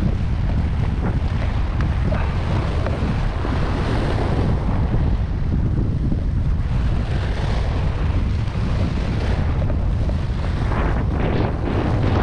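Wind buffeting the camera microphone in a steady low rumble, over small waves washing and splashing across a rock shelf, with a few louder surges of wash near the end.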